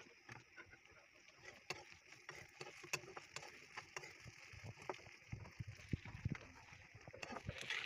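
A metal spatula stirs and scrapes fried dried buffalo meat (sukuti) in a black wok, making scattered clicks and knocks over a faint steady hiss.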